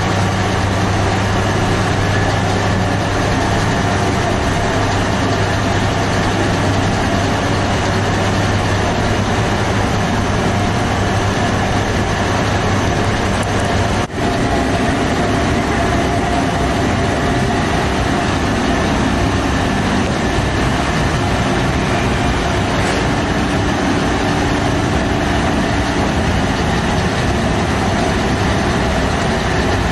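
Steady machinery drone with a low hum, running at an even level and dropping out for a moment about halfway through.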